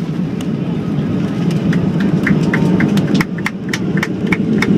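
Steady low rush of a Boeing 737-700's engines and airflow heard inside the passenger cabin on the landing approach. From about a second and a half in, a run of quick, regular clicking rattles sits on top of it, three or four a second.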